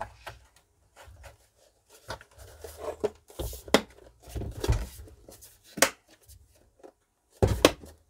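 Plastic soundbar housing being snapped back together and handled: a string of irregular clicks and knocks, the loudest near the end as the bar is turned over.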